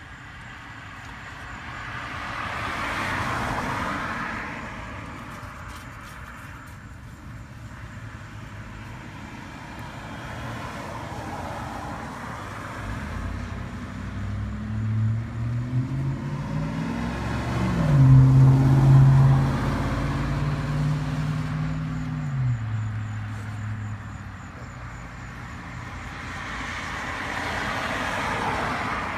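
Traffic passing on a two-lane road: a car goes by a few seconds in, then a heavier vehicle passes with a low engine drone that climbs and holds, loudest about halfway through, and another car passes near the end.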